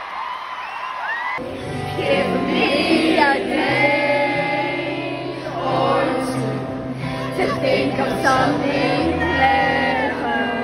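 Live arena concert heard through a phone's microphone: a woman sings lead into a microphone, and the full band's bass and beat come in about a second and a half in.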